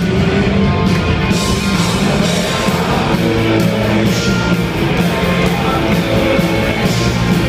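A rock band playing live, with electric guitars, bass and drum kit at full, steady volume, heard from high up in the audience of a concert hall.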